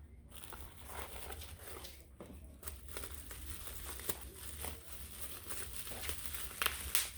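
Paper packaging crinkling and rustling as a small box is opened and its contents unwrapped, a run of irregular crackles that gets sharper and louder near the end.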